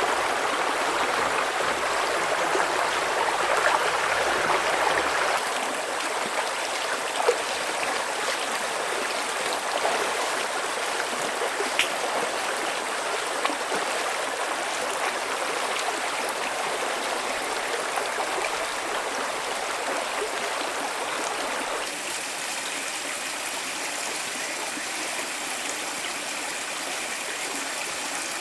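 Forest stream running: a steady rush of water, with a few faint clicks.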